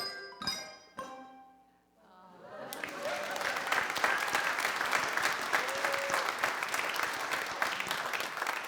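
Handbell choir's last chords struck and ringing out, dying away within about two seconds, then the congregation applauding steadily.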